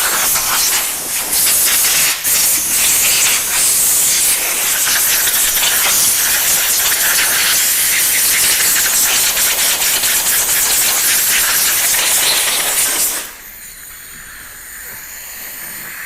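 Compressed-air blow gun hissing steadily as it blows dust off a car headlight. About thirteen seconds in it drops to a quieter hiss.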